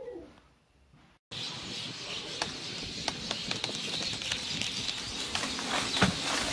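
A large flock of birds calling all at once, a dense mass of many short sharp calls over outdoor noise, starting abruptly a little over a second in. The birds are disturbed from a tree holding their nests as it is brought down.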